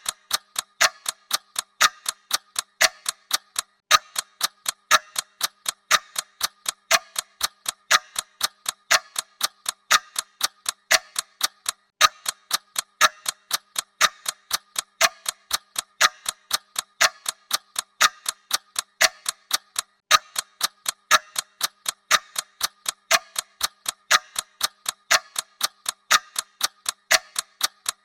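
Clock ticking sound effect: rapid, even ticks with a louder tick about once a second, keeping time for a countdown timer.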